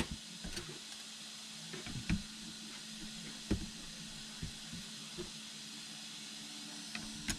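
A few scattered light clicks and taps of plastic drone propellers being handled and fitted onto the motors, over a steady hiss and low hum.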